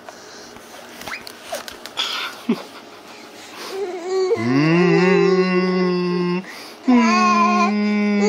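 A person's voice making two long, held vocal sounds: the first slides up into its note about four seconds in and holds for about two seconds, and the second starts about seven seconds in and holds for nearly three seconds. Soft clicks come before them.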